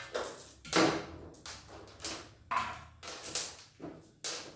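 Heavy steel lifting chains of a workshop crane clanking and rattling as they are handled and swing loose: about eight irregular metallic knocks, each ringing briefly.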